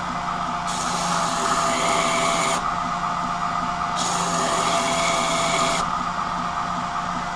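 Wilmont belt grinder running steadily while a mild steel knife blank is pressed against the belt over the plunge attachment's small wheel twice. Each grinding pass is a hiss lasting about two seconds.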